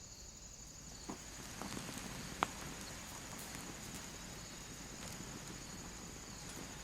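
Night insects, crickets, chirping in a steady high-pitched pulsing trill. Over it come a few knocks and clicks, the sharpest about two and a half seconds in.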